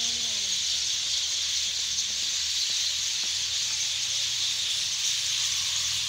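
A huge flock of birds calling all at once, a dense and steady high chatter with no single call standing out.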